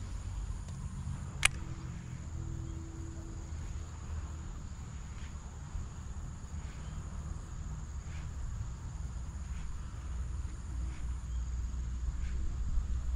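Insects droning with a steady, even high-pitched buzz over a low rumble. A single sharp click comes about a second and a half in, and faint ticks follow every second or so.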